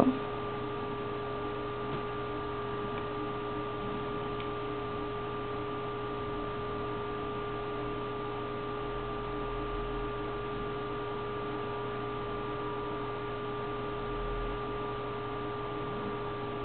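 Steady electrical hum with two faint, unchanging whining tones over a low hiss.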